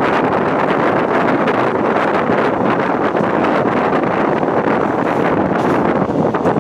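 Wind buffeting the microphone from a moving train, a loud steady rush with the train's running noise beneath it.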